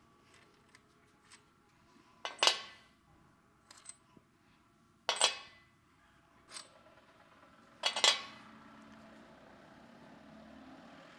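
Metal engine parts clinking against a cast-iron engine block as they are handled: three sharp metallic clacks about three seconds apart, each ringing briefly, with light ticks in between. A faint steady hum follows the last clack.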